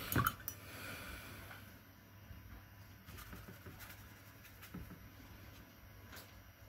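A few sharp knocks of a paintbrush near the start, as it is rinsed in a glass water jar, then faint brush dabbing and scrubbing in a metal watercolour palette and on paper.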